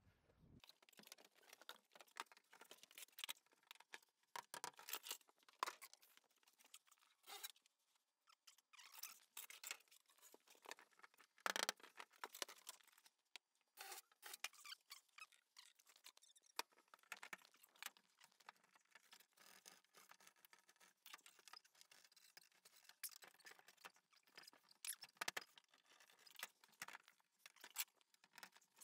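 Faint drywall work: quick, irregular scratching, crunching and clicking as gypsum board is cut, scored and handled.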